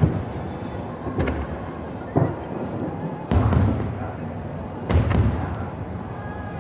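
Aerial fireworks shells bursting: a series of deep booms about a second apart, each followed by a rolling rumble, the loudest about halfway through.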